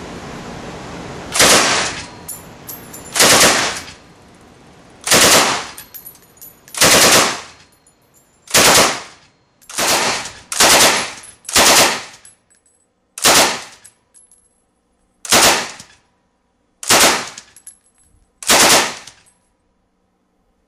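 About a dozen short bursts of automatic fire from a Soviet DPM light machine gun and then a British Bren light machine gun, each burst lasting under a second. Both guns fire at about 500–550 rounds a minute.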